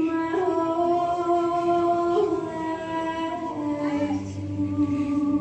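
A slow song playing, with long held notes; a low bass part comes in about four seconds in.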